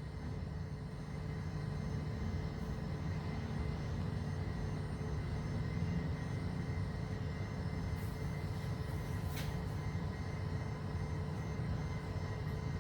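Mercedes-Benz W211 Sensotronic Brake Control (SBC) hydraulic unit running with a steady low hum as the brake system is depressurized during the scan-tool deactivation routine.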